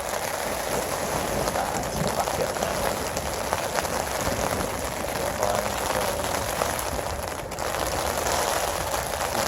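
Steady rain falling, an even hiss of drops on a surface.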